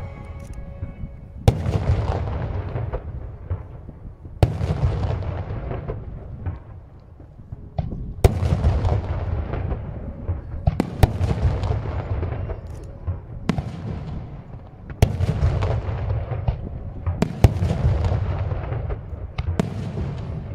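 Aerial firework shells bursting: about ten sharp bangs, one every second or two, some in quick pairs, each trailing into a long low rumble that dies away before the next.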